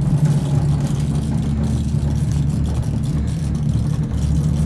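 Steady low hum and rumble inside a gondola cabin travelling along its cable.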